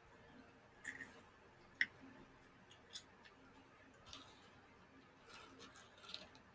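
Faint, scattered clicks and light crackles of eating and handling food, with sharper ticks about a second and about two seconds in.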